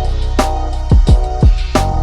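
Background music with a steady drum beat: deep kick drums, sharp snare hits and a held bass line under sustained chords.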